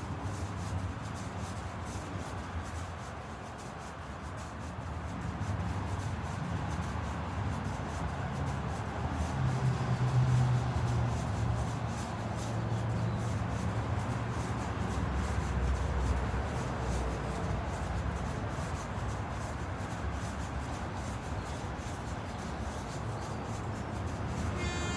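Feet jumping in and out on foam floor mats during plank jacks: repeated soft thuds and scuffs, over a steady low rumble.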